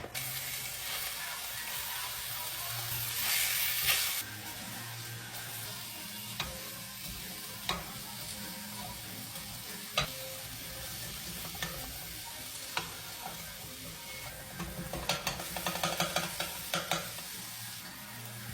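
Food sizzling in a frying pan as it is stirred, with occasional sharp clicks of a utensil against the pan. The sizzle grows louder and crackles about three seconds in and again near the end.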